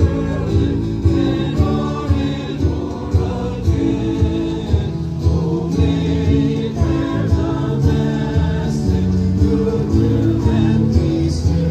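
A group of people singing a hymn together over instrumental accompaniment with a steady beat.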